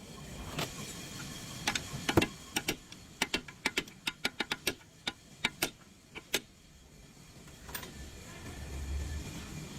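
A series of about twenty sharp, irregular clicks and taps over six seconds, stopping about six and a half seconds in, over a faint steady background.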